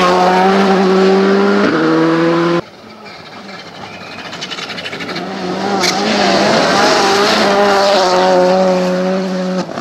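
Skoda Fabia R5 rally car's 1.6-litre turbocharged four-cylinder engine at high revs close by, its note dropping with an upshift a couple of seconds in; then, after a sudden cut, a VW Polo R5 rally car's engine approaching on gravel, growing louder and holding high revs as it passes.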